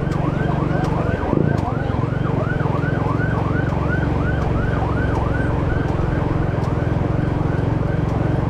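A vehicle engine running steadily under a warbling, siren-like tone that sweeps up and down about three times a second.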